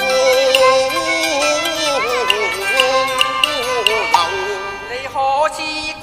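Cantonese opera accompaniment ensemble playing an instrumental passage: a sliding, wavering melody line over short plucked notes, with a rising glide near the end.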